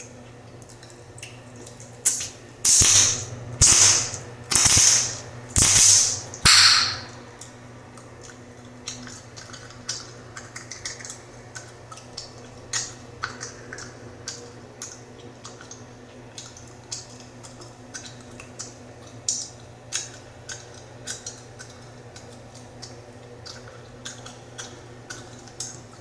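Bubblegum being snapped and popped in the mouth: a quick run of about six loud pops about two seconds in, then softer, irregular small gum snaps and clicks for the rest of the time.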